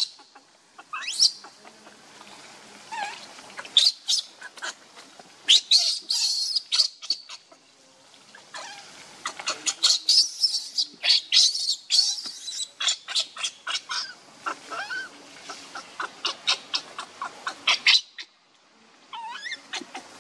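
Baby macaque screaming: shrill, high squeals that rise and fall, coming in runs of short cries that are quickest from about ten seconds in. This is the protest of a hungry baby refused milk by its mother.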